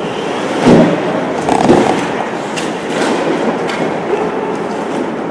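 Two dull thuds about a second apart over a steady rumbling din.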